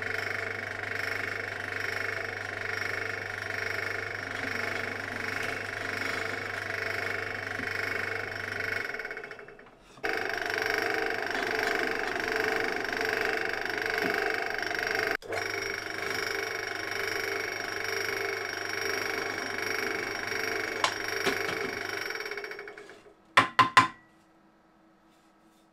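Benchtop pillar drill running, a steady motor whine over a mains hum, as it bores holes in plywood. The sound drops out briefly about ten seconds in, stops about 22 seconds in, and is followed by a few short clicks.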